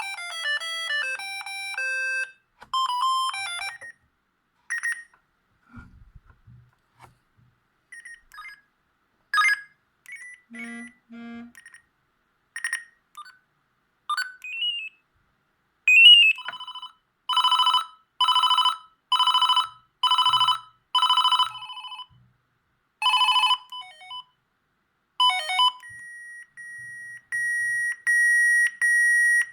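Siemens S45 mobile phone playing a string of its built-in ringtones through its small speaker: short beeping melodies, then six evenly spaced ring bursts a little under a second apart, and a long steady tone near the end.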